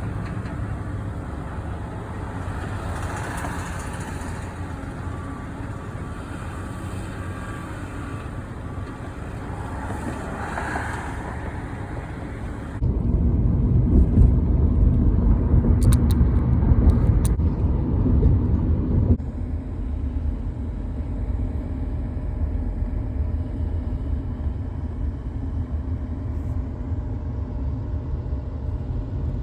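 Motor vehicle engines running at a highway construction site, a steady rumble that jumps abruptly louder and deeper about 13 seconds in and drops back about 19 seconds in, with a few sharp clicks in the loud stretch.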